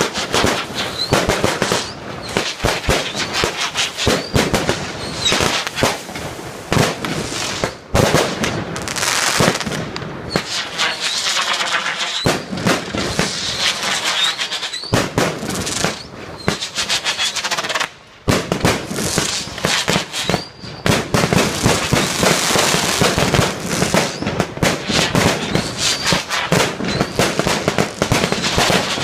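Fireworks going off in a dense, continuous run of bangs, pops and crackling, with a short lull about eighteen seconds in.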